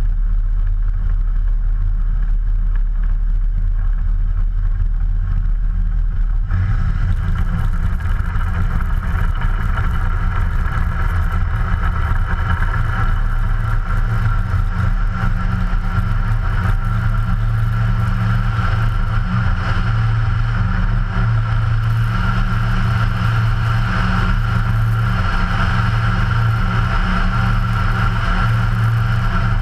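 Ikarus C42's 100 hp Rotax 912 ULS four-cylinder engine and propeller running at low power on the runway, then opened up to full takeoff power about six and a half seconds in and held steady at full throttle through the takeoff and climb.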